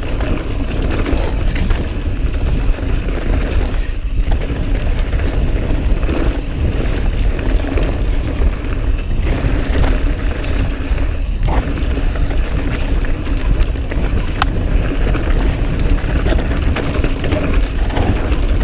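Mountain bike descending a loose, dusty dirt trail at speed: wind rushing over the camera microphone mixed with tyre noise and the rattle of the bike over the ground, with a few sharp clicks.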